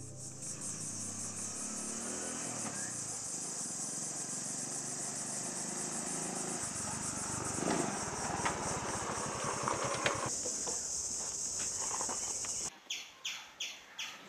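Steady high-pitched drone of cicadas or crickets over the low running of a motorcycle engine as it rides up close. The engine sound cuts off suddenly near the end, leaving a run of short, quick chirps.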